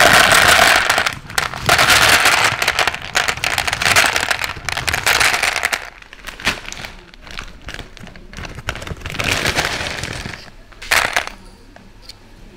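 Dry pasta poured from its plastic packet onto a kitchen scale, a dense rattle of many small clicks with the packet crinkling. A long pour is followed by a shorter top-up about nine seconds in, then a single click.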